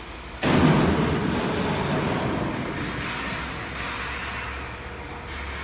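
Slitting-creasing machine for corrugated board, with thin circular knives, running. Its noise comes in abruptly about half a second in and slowly eases off.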